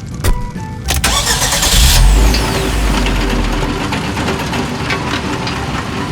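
Excavator engine sound effect: a click, then the engine starts with a loud low rumble about a second in and settles into a steady run.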